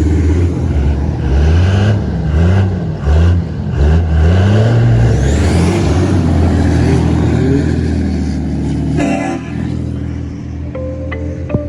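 Truck engine revving up and down in quick repeated surges, its pitch rising and falling about once a second, then running more steadily. A brief noisy burst comes near the end.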